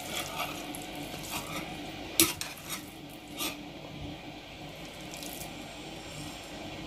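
Serving spoon clinking against the baking dish and plate as biryani is scooped out: a few scattered knocks, the loudest about two seconds in and another about a second later, over a faint steady room hum.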